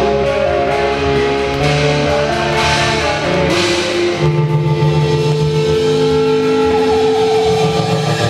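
A punk/post-hardcore band plays loud live rock: electric guitar chords over drums. The guitars ring out on long held notes in the second half.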